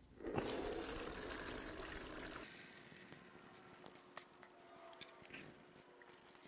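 Old, chunky engine oil pouring out of an upturned Jeep 4.0L inline-six block into a drain pan: a gush for about two seconds, then dwindling to a trickle and scattered drips. The chunky oil is a sign of a badly neglected engine.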